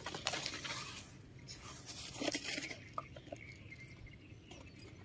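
Faint rustling and small scattered clicks of plastic cups and sand toys being handled in sand, busiest in the first three seconds and then thinning out.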